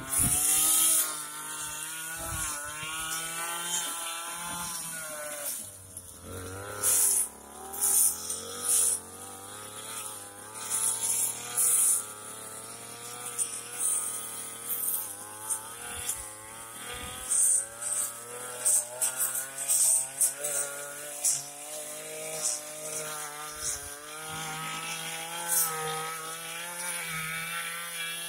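Two-stroke backpack brush cutter running under load as it cuts thick grass. The engine pitch rises and dips with the load, broken by frequent brief loud bursts of noise.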